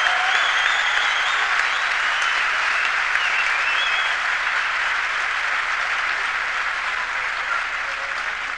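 Arena crowd applauding after a rally is won, with a few high-pitched calls early on; the applause slowly dies down.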